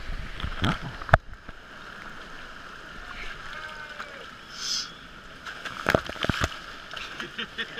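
Steady rush of running water, with a few sharp knocks about a second in and again near six seconds.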